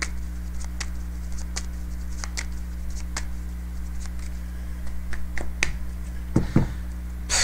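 A deck of tarot cards shuffled by hand: irregular sharp clicks of the cards, about one or two a second, ending in a louder snap. A low steady hum runs underneath.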